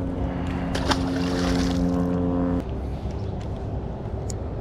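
A motor running with a steady hum over a low rumble, cutting off suddenly about two and a half seconds in.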